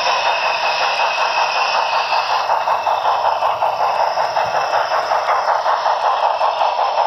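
Steam-locomotive chuffing from the onboard Paragon3 sound system of an HO scale Broadway Limited C&O L-1 Hudson model, a rapid, even run of chuffs with a steady hiss as the engine runs along the track.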